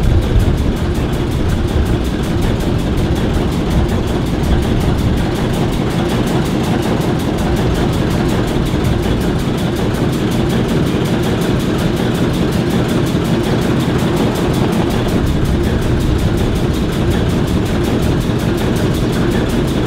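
Two ALCO diesel switcher locomotives, an S4 and an S7, idling together, their turbocharged six-cylinder 539 diesel engines running steadily.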